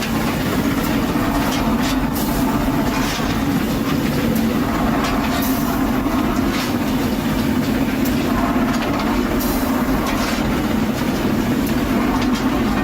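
A train running steadily, a continuous low noise with short, sharp high-pitched bursts now and then.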